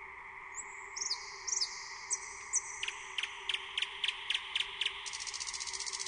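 Nightingale singing one phrase: a few clear whistled notes, then about eight sharp repeated strokes at roughly four a second, ending in a fast rattling trill, over a steady background hum.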